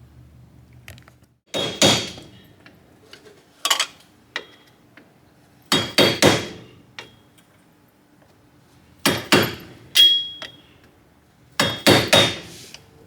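Hammer blows on metal, coming in about five groups of one to three sharp strikes, each with a short bright ring.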